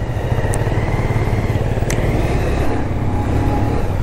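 Motorcycle engine running steadily as the bike rides along. Two short clicks come about half a second and two seconds in.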